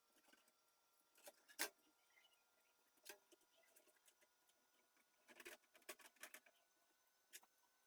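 Faint scattered clicks and taps of small hard parts being handled, with one sharper click about one and a half seconds in and a quick run of clicks past the middle.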